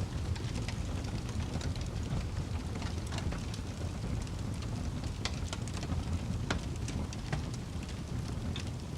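Fire crackling, with irregular sharp pops and snaps over a steady low rumble; a few louder pops come a little past the middle.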